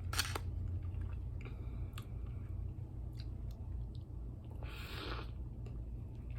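Close-up chewing of a taco: soft wet mouth clicks and squishes over a steady low hum, with a brief hiss about five seconds in.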